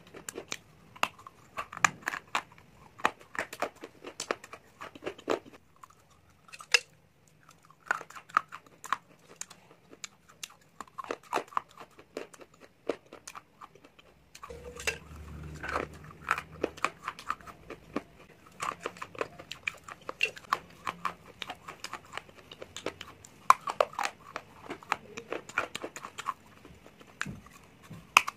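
Crisp crunches and chewing, close to a clip-on microphone, as pieces are bitten off a brittle grey gullak-shaped shell, with a short pause about six seconds in.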